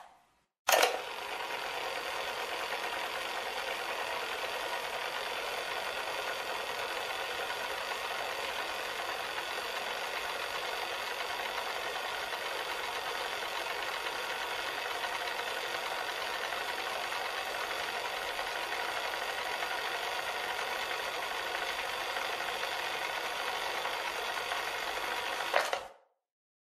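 Cassette player running: a click about a second in, then the tape mechanism whirring steadily at an even level, stopping abruptly with a click near the end.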